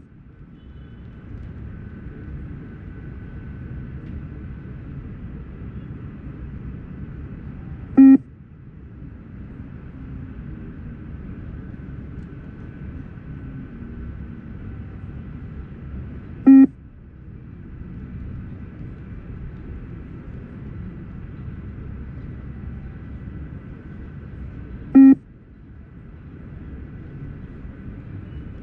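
Beep test (multistage fitness test) recording sounding three single electronic beeps, about eight and a half seconds apart, over a steady low rumble. Each beep marks the end of a 20 m shuttle at level 1 pace.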